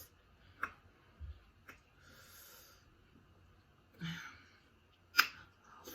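Close-miked eating of a seafood boil: scattered sharp clicks and cracks of shells and mouth noises, the loudest crack about five seconds in. A breathy hiss comes about two seconds in.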